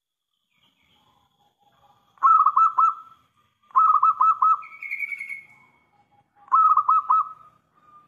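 Zebra dove (perkutut) cooing its song: three short bursts of about four quick, rolling coos each, a little over a second apart, with a higher drawn-out note slurring down after the second burst.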